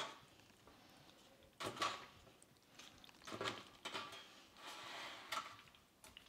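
Plastic crottin cheese molds being turned over and set down on plastic netting over a tray: a handful of light, spaced knocks and a brief scrape near the end.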